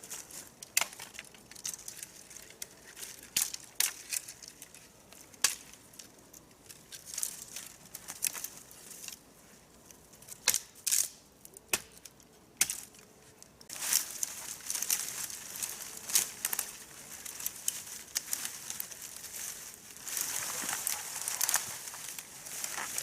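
Dry fallen leaves and twigs crunching and snapping in irregular cracks, turning to a denser, steadier rustle about two-thirds of the way through.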